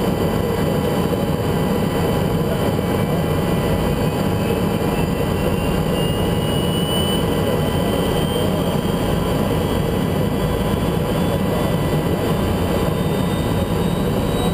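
Aérospatiale SA 330 Puma helicopter's twin turboshaft engines running steadily, heard from inside the cockpit, with a faint high whine that rises slowly in pitch through the middle. The sound cuts off abruptly at the end.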